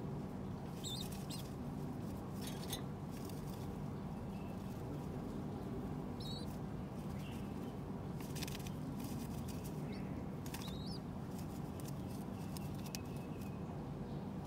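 A pigeon preening its tail feathers: short, scattered rustles and scratches, several times over a steady low background rumble.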